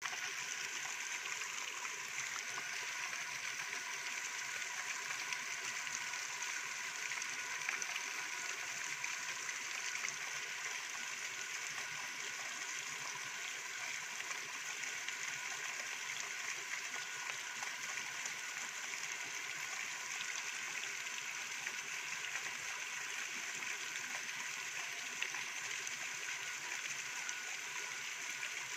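Steady rushing of creek water, with a couple of faint clicks about eight and ten seconds in.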